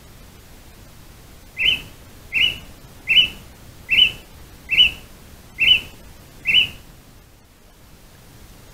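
Juvenile Harris's hawk screaming: seven short calls a little under a second apart, each rising quickly and then held briefly.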